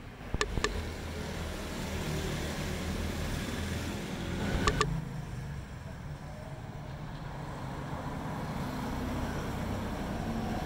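A motor vehicle engine running, its level swelling and dipping, with a few sharp clicks about half a second in and near the middle.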